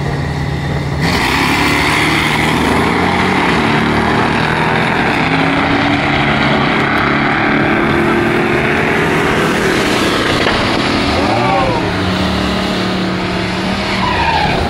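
Drag-racing car's engine idling at the start line, then about a second in it launches at full throttle and runs down the strip, its pitch rising in steps before easing off after about ten seconds. Near the end another car's engine idles close by.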